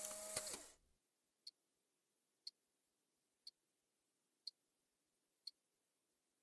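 A buzzing, hissing glitch effect fades out in the first second, then a clock-like tick sounds once a second, six times, with dead silence between.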